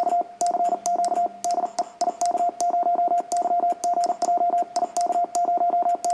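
Morse code sent in iambic mode on an N2DAN Mercury paddle: a keyer sidetone near 700 Hz keyed rapidly in dots and dashes, with a sharp click at the start of each element.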